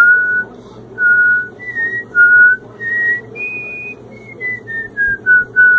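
A man whistling a tune in clear single notes, with one high note held a little longer around the middle and a run of short notes stepping down in pitch near the end.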